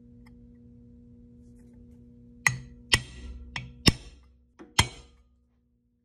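Six sharp metallic clicks, irregularly spaced over about two and a half seconds, each with a brief ring, as a center punch marks the machined aluminum battery box for drilling. A faint steady hum runs underneath.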